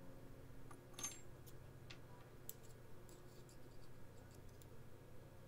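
Faint scattered clicks and small metal taps as the microphone holder is worked off a Binatone 5 Star CB radio, with one sharper click about a second in, over a faint steady low hum.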